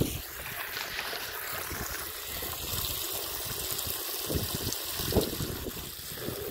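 Wind buffeting the microphone: a steady noisy rush with low rumbling gusts that swell and fade, a few stronger ones about four and five seconds in.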